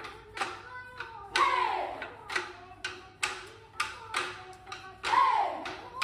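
Background music: a steady drumbeat, about two beats a second, under a melody, with a loud falling glide twice, about a second and a half in and again near the end.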